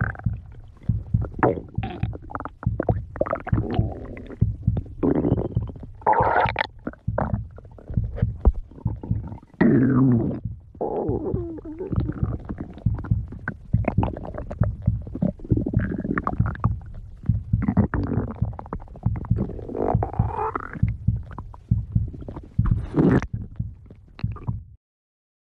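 A hungry stomach growling and gurgling in a long irregular run of rumbles and crackles, with several drawn-out gurgles that rise and fall in pitch. It cuts off abruptly shortly before the end.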